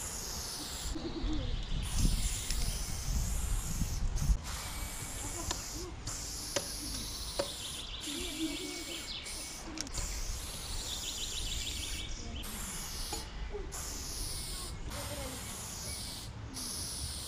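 Aerosol spray paint can hissing in long bursts, with short breaks as the nozzle is released and pressed again.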